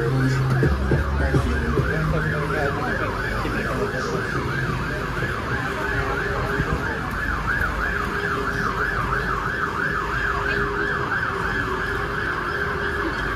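Emergency vehicle siren in fast yelp mode, its pitch sweeping rapidly up and down about three times a second, heard over the steady noise of a busy street with traffic.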